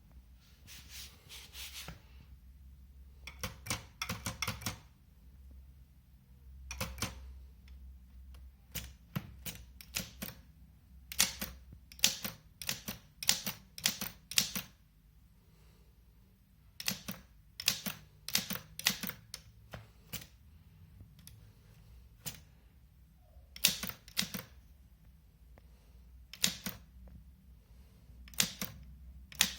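Bulgarian-made typewriter being typed on: quick runs of sharp key strikes with short pauses between them, over a faint low hum.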